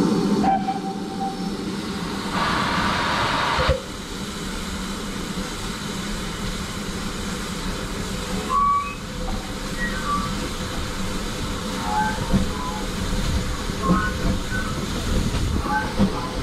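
GWR small Prairie 2-6-2T steam locomotive No. 5542 hissing steam for about a second and a half a few seconds in, cutting off suddenly, then a steady low rumble as the train moves off slowly.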